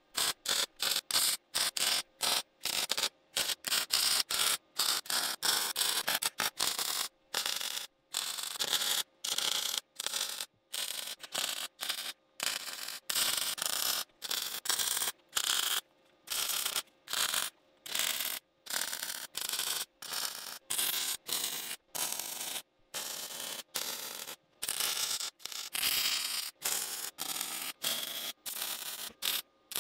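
MIG welding arc crackling and hissing on steel square tubing, in many short bursts with brief breaks between them, a few a second, as the welder stitch-welds the frame joints.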